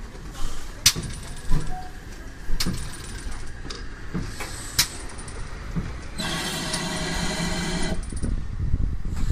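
Steam locomotive turning on a railway turntable: several sharp metallic clanks and knocks, then a hiss lasting about two seconds, starting about six seconds in.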